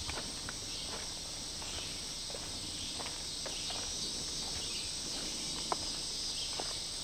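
Steady, high-pitched chorus of insects in summer woods, with a few faint footsteps on a dirt trail, one sharper near the end.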